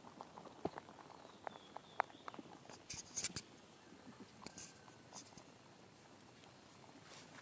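A crowd of rabbits eating from a feeding tray: faint scattered clicks, crunches and rustles of nibbling and shuffling, busiest about three seconds in and quieter towards the end.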